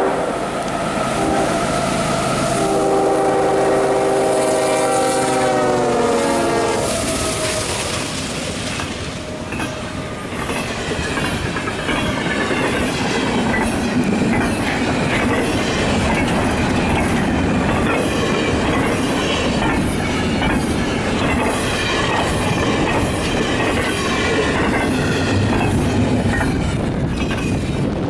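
CSX freight train passing at speed: the locomotive's horn sounds a chord that drops in pitch as the locomotive goes by, then the freight cars rush past with a rhythmic clatter of wheels over the rail joints.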